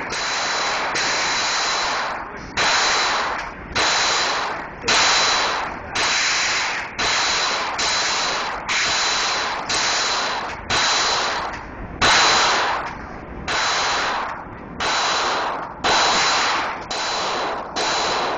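Handgun firing a long series of shots, about one a second and fairly evenly paced, each sharp crack trailing off in a long echo off the concrete walls of an indoor shooting range.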